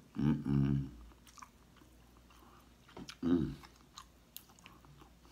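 A person chewing food close to the microphone, with small wet mouth clicks. Two short hums from his voice come just after the start and about three seconds in.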